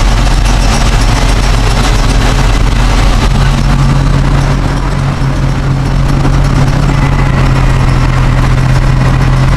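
Caterpillar D9 bulldozer's diesel engine running steadily under load, heard from its cab, with a deep hum that grows stronger about three and a half seconds in.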